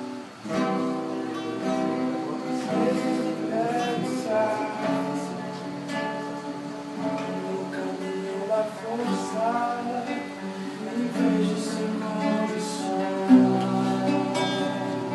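Acoustic guitar (violão) strumming the chords of a Christian hymn, with a wavering melody line carried above it.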